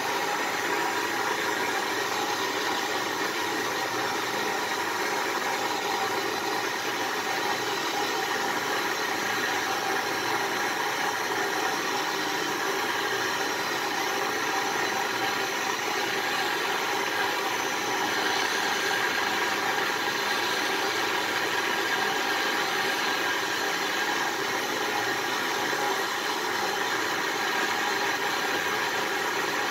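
Handheld butane canister torch burning steadily, its flame blasting into a clay crucible with a constant, even hiss.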